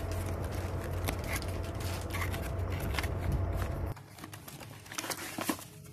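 Hands opening and handling a cardboard box, with scattered light scrapes, rustles and taps of the card. A low hum lies under the first two-thirds and stops about four seconds in.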